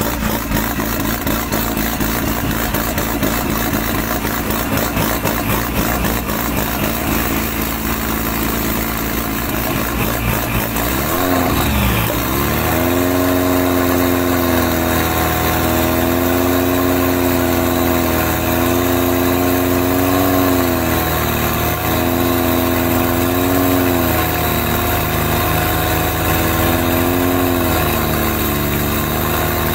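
Pickup truck engine running rough and fast at first. About a third of the way in it is revved up and held at high revs, with brief dips in revs every couple of seconds.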